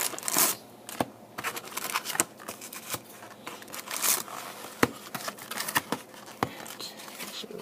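Trading-card box and its plastic wrapping being handled: irregular crinkling and rustling with sharp clicks and taps of cardboard.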